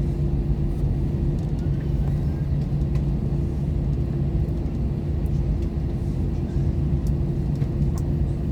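Steady low rumble and droning hum inside the cabin of an Airbus A321-200 taxiing after landing, with a few faint clicks.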